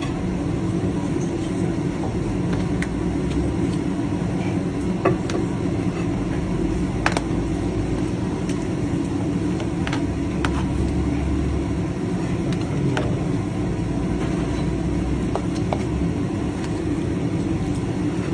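Steady low rumble of a moving vehicle, with scattered sharp clicks and knocks.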